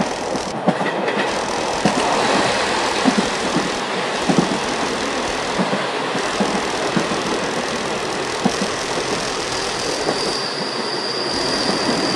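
Train carriage running along the track: a steady rumble and rattle with irregular clacks of the wheels over the rails. A high, steady wheel squeal sets in about ten seconds in.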